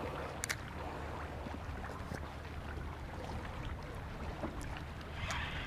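Steady low outdoor rumble of wind and water ambience, with a few faint clicks.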